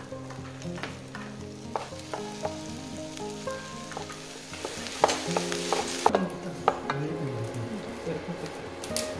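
Fried rice sizzling in a nonstick frying pan while a wooden spatula stirs and scrapes through it. A cluster of sharp knocks from the spatula against the pan comes about five to seven seconds in.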